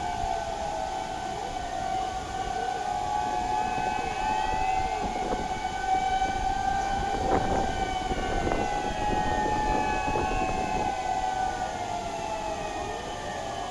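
A siren wailing on a held pitch that dips and rises slowly, with other siren tones sliding across above it.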